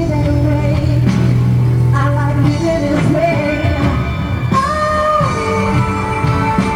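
A pop song playing: a sung voice holding long notes over a steady bass and backing instruments.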